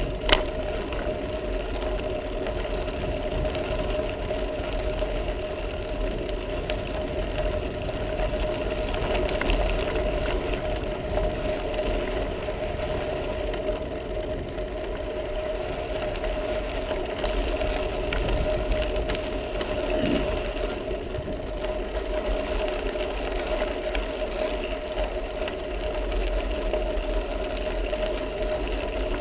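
Bicycle rolling along a sandy gravel path, recorded on a GoPro action camera: a steady rumble of tyres, wind and frame vibration with some rattle and a constant faint hum. A sharp click right at the start.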